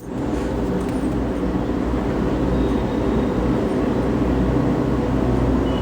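Steady low hum with an even haze over it, like a motor or machine running.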